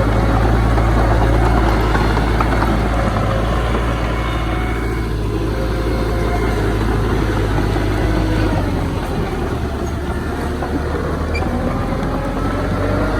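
Heavy diesel earthmoving machinery running steadily, with a deep engine hum. The engine note shifts about two-thirds of the way through and rises slightly near the end.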